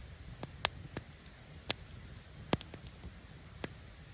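Campfire crackling: irregular sharp pops and snaps of burning wood every half second or so, over a low steady rumble.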